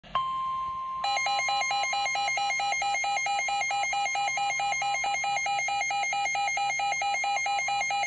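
Midland NOAA weather alert radio sounding its tornado warning alarm. A steady tone holds for about a second, then gives way to a loud, rapidly pulsing electronic beeping of about four beeps a second.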